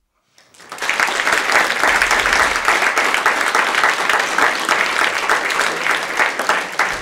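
An audience applauding, many hands clapping at once; it builds within the first second and then holds steady.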